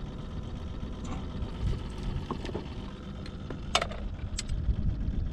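Low, steady rumble of wind buffeting the microphone, with two or three light clicks a little before the end.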